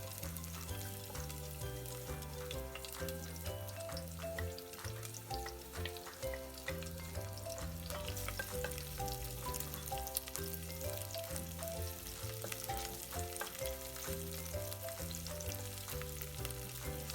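Garlic, onion and ginger sizzling and crackling as they sauté in oil over medium heat, with occasional stirring. A background music track with a steady bass line plays underneath.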